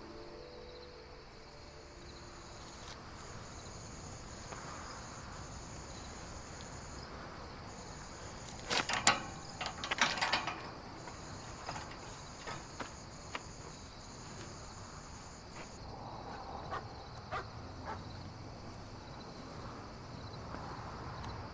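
Crickets trilling in a steady high, pulsing chirr. About nine seconds in comes a burst of metallic clicking and rattling from a metal gate being handled, followed by scattered single clicks.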